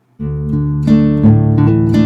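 Instrumental background music that starts abruptly a moment in, with held chords changing every half second or so.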